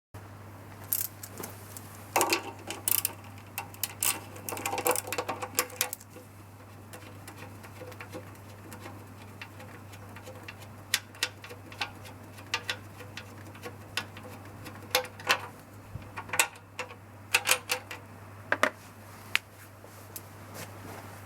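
Hand tools clicking and clinking against metal parts while a lawnmower's carburetor is being unbolted, in irregular clusters of sharp clicks with pauses between.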